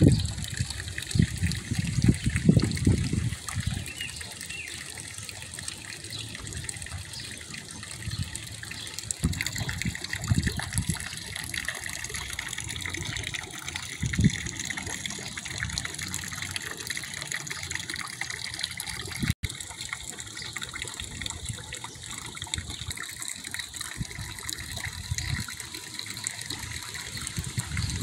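Small pond fountain jet splashing steadily into the water. A few low rumbles on the microphone come and go, strongest in the first three seconds.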